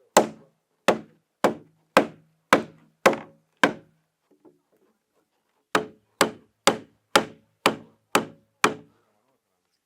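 Heavy blows of a hand tool on wood, sharp and evenly spaced at about two a second, each with a short ring. There are seven strikes, a pause of about two seconds, then seven more.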